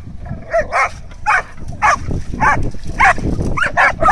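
Dog barking repeatedly, about two short barks a second: excited play barking while dogs leap at a hanging toy.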